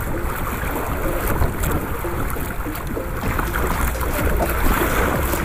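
Steady wind noise on the microphone, with choppy sea water splashing against a small outrigger boat.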